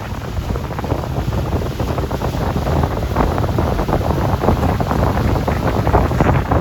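Wind buffeting the microphone on a moving boat: a loud, gusty rumble that grows a little louder toward the end.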